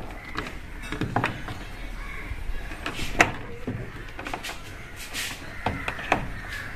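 Scattered clicks and knocks of a tool on the plastic pulsator of a Whirlpool top-load washing machine as its centre cap is worked off; one sharper knock about three seconds in.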